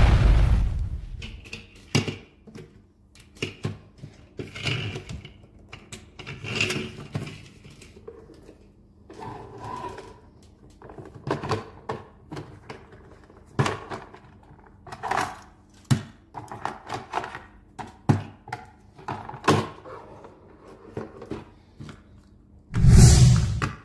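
Hard plastic toy trains and a toy coach being handled on a table: scattered clicks, taps and knocks. A loud sound fades out in the first second, and a loud burst of about a second comes near the end.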